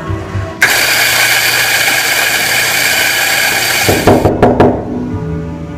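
Electric coffee grinder running steadily for about three seconds as it grinds beans, then stopping, followed by a few quick sharp knocks as the ground coffee is tapped out and into the portafilter.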